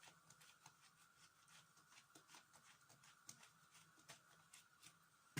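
Near silence with faint small scrapes and clicks of an eggplant being hollowed out with a coring knife, over a faint steady hum. A short, louder knock comes just before the end.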